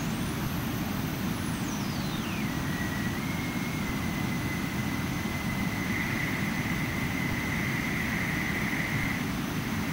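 Synthesized jet engine sound from ZynAddSubFX: a steady, deep noise with a whistling tone on top. The whistle sweeps up to a very high pitch, falls back within about two and a half seconds, then holds steady. It grows louder for a few seconds near the end as the EQ band on the noise is tuned.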